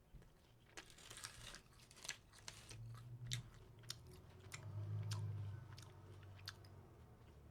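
A person chewing crunchy food close to the microphone: irregular crisp crunches, with a low hum swelling twice, about three and five seconds in.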